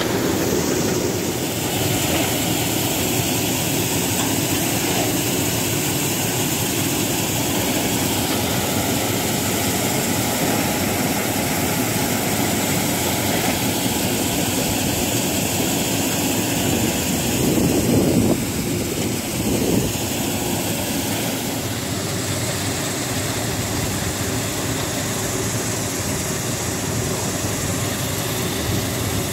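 Grain loader running steadily, its scraper feeders and inclined conveyor carrying barley up into a truck, with shovels scraping grain into the feeders. A brief louder patch comes about eighteen seconds in.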